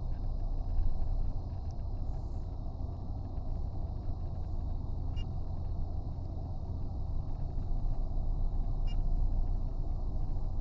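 Steady low rumble of a 2025 Toyota 4Runner heard inside the cabin: engine and road noise, with a few faint ticks.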